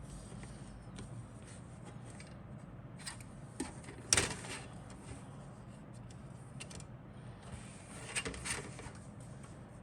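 Handling noises from a plastic model kit's parts and packaging: light clicks and rustles, with a sharp knock about four seconds in and a short run of clicks near the end, over a steady low hum.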